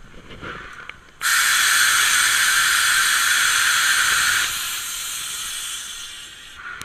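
Steam hissing loudly in the cab of Puffing Billy's NA-class narrow-gauge steam locomotive 14A. It starts suddenly about a second in, drops to a lower level about three seconds later, and dies away near the end.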